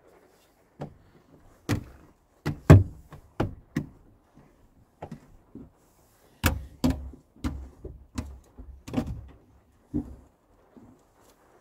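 A string of sharp knocks and clunks, about a dozen, from gear being handled and moved about inside a small camper van, loudest nearly three seconds in.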